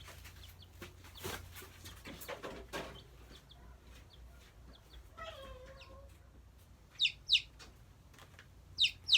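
Baby chicks peeping: a few sharp, high, falling peeps near the end, after some rustling and handling noise in the first few seconds.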